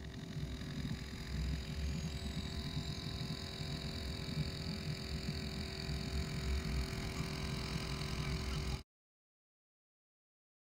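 Low, steady rumble of a river boat's motor, with a faint hiss above it. The sound cuts off to silence about nine seconds in.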